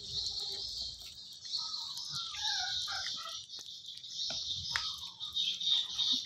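Kitten chewing and tearing at a piece of raw chicken, with scattered short wet clicks. A steady high hiss runs underneath, and a run of short chirping calls comes about one and a half to three seconds in.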